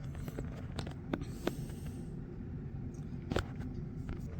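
A few scattered light clicks from the Epson Q303A keyboard's keys being pressed, about four in all, the loudest about three and a half seconds in, over a low steady hum.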